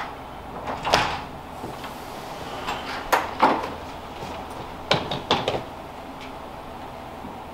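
A door being worked: about six sharp clicks and knocks, unevenly spaced, over a low steady hum.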